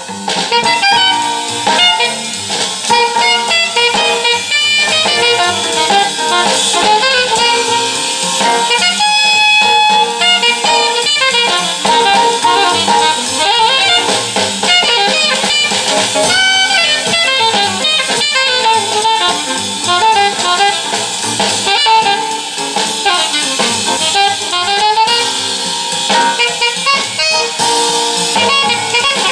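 Recorded jazz played back through a 2A3 single-ended valve amplifier and loudspeaker.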